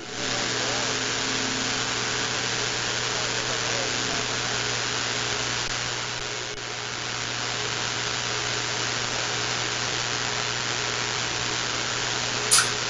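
CB radio receiver static: a steady, even hiss of band noise that comes on abruptly as the transmission ends, with a low hum underneath and a brief chirp near the end.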